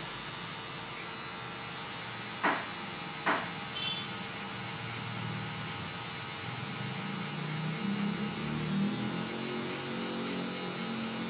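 Cordless hair clipper buzzing steadily as it blends a skin fade, its blade lever worked open and closed; its pitch wavers over the last few seconds. Two sharp clicks come about two and a half and three seconds in.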